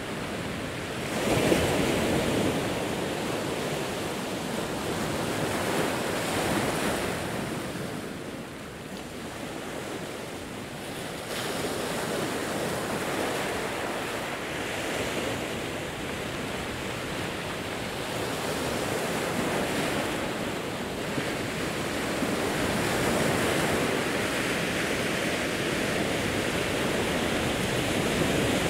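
Pacific Ocean waves breaking and washing over a rocky shore in slow, rolling surges, the loudest surge breaking about a second and a half in.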